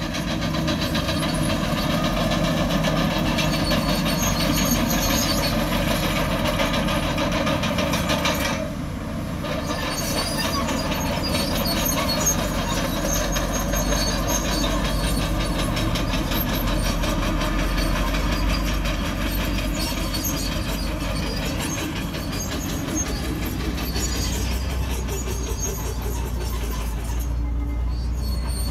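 Komatsu crawler bulldozer at work: diesel engine running steadily under the clanking and squealing of its steel tracks.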